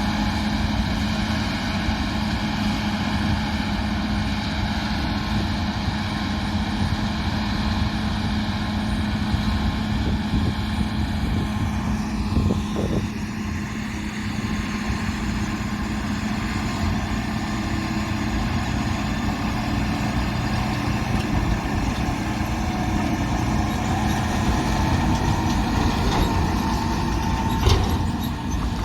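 Combine harvester running steadily, its engine and threshing machinery giving a constant hum. About halfway through, a high whine slides down in pitch, and a short knock comes near the end.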